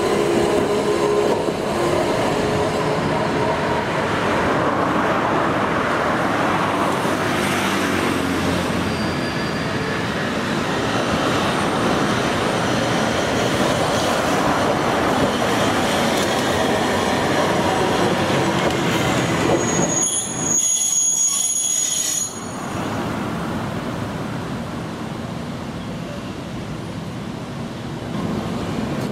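Iyotetsu Model 50 streetcar running along street track with a steady rolling noise of wheels on rail, and a brief high-pitched wheel squeal about twenty seconds in.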